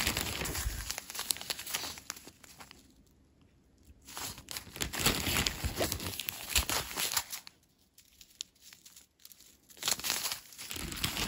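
Small plastic zip-lock bags filled with seed beads crinkling as they are picked up, handled and laid down, in three bursts with quieter pauses between.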